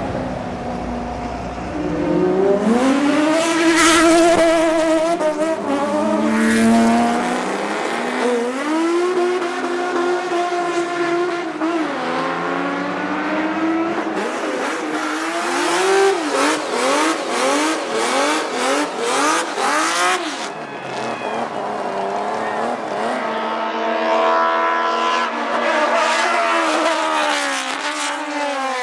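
Racing car engines revving hard, the pitch climbing and dropping again and again through gear changes and passes.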